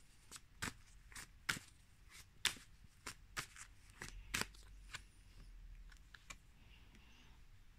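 A tarot deck shuffled by hand: quick, irregular snaps and slaps of the cards for about five seconds, thinning to a few faint clicks near the end.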